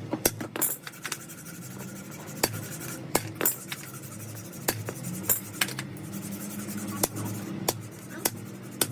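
Metal clutch-plate parts and hand tools clinking and tapping at an uneven pace, sharp single knocks every half second or so, over a low steady hum.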